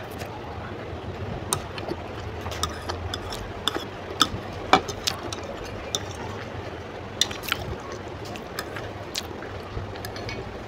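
Close-up eating of Maggi instant noodles: chewing with wet mouth smacks and slurps, and a fork scraping the plate as noodles are twirled up. Scattered sharp clicks, loudest about four to five seconds in.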